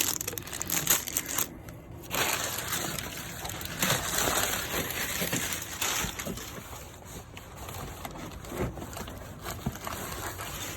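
Packaging rustling and crinkling in irregular surges with small clicks as items are handled and unpacked from a shipping box.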